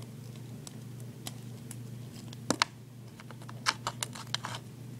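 Small sharp clicks from duct tape and scissors being handled: two close together about halfway through, then a quick run of about six near the end, over a steady low hum.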